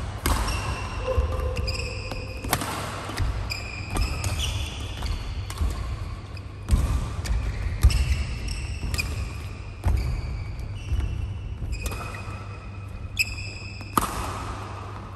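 Badminton rally: rackets strike the shuttlecock with sharp pops about every one to two seconds, and shoes give short high squeaks on the court mat between the hits.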